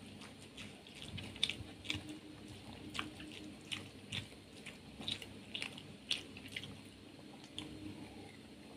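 Close-miked chewing of soft rice mixed with lentil dal: faint, irregular wet smacks and clicks of the mouth, about one or two a second.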